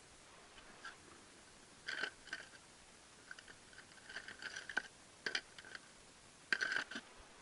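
Screwdrivers, pens and markers clinking and rattling against each other as hands rummage through a cluttered wooden drawer, in several short bouts of clatter.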